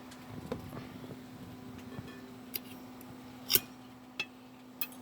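A few light clicks and taps of a knife against a plate as small fried quail eggs are cut, the loudest a little past halfway, over a steady low hum.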